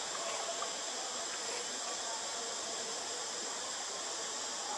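Steady high-pitched drone of forest insects, with a few faint short calls early on.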